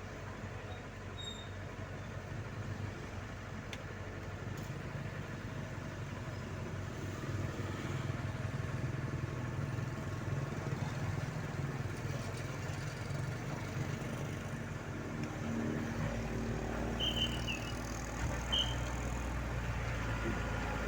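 An engine running steadily and slowly growing louder, with a deeper drone joining about three quarters of the way through, typical of the heavy equipment working at a roadside culvert repair.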